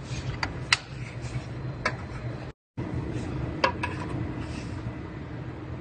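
A few sharp metallic clicks and clinks as measuring-system attachments are fitted by hand under a car, over a steady low shop hum. The sound drops out completely for a moment about halfway through.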